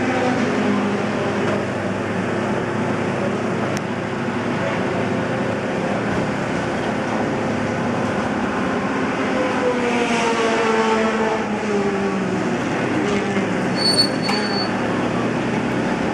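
Racing car engines running on the circuit in a steady background drone. About ten seconds in, one engine note falls in pitch as a car passes. A short high beep sounds near the end.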